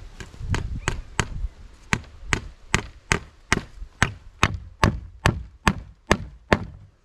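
A tool striking again and again with sharp blows: a few uneven strikes, then a steady beat of about two and a half blows a second, some fifteen in all.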